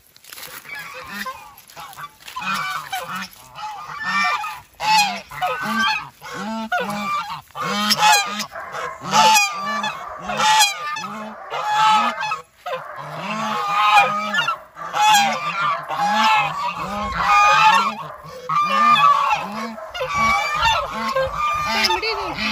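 A flock of domestic geese honking, several birds calling over one another in a rapid, unbroken series.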